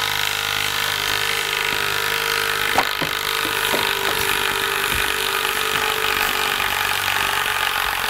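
Bosch 12-volt brushless cordless impact tool running steadily under load, impacting continuously as it backs a lag screw out of wood through a socket.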